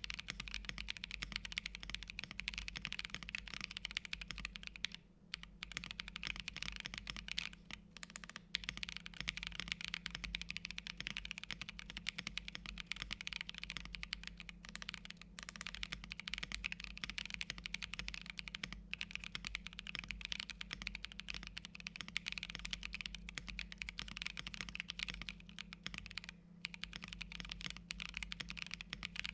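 Typing on a Bakeneko65 mechanical keyboard with tactile Neapolitan Ice Cream switches and PBT keycaps on an O-ring-mounted FR4 plate: rapid, continuous keystrokes broken by a few brief pauses.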